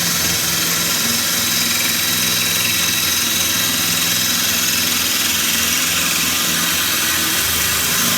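Handheld electric drill running steadily at high speed, its diamond hollow core bit grinding into glass kept wet with running water.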